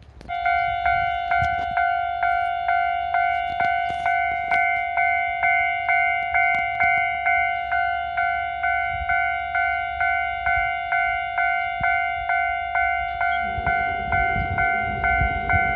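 Japanese railway level crossing warning bell ringing in a steady, even rhythm of about two strikes a second as the crossing activates. A low rumble rises in near the end.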